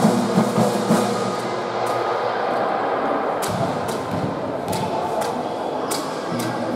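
Crowd in an indoor basketball hall, fans chanting at first, with several sharp knocks cutting through in the second half.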